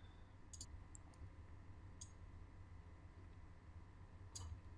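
A few faint computer mouse clicks, spaced irregularly, over a quiet background hum.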